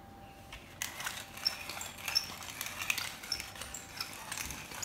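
Brass hand-cranked pepper mill grinding peppercorns: a fast run of small crunching clicks that starts about a second in and keeps going.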